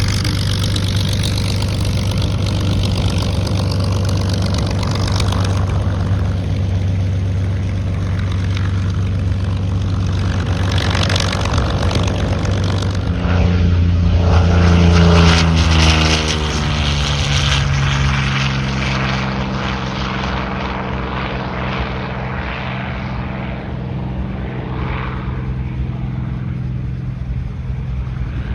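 Piston-engine propeller airplane flying by, its engine drone loudest about halfway through, then dropping in pitch as it passes and moving off.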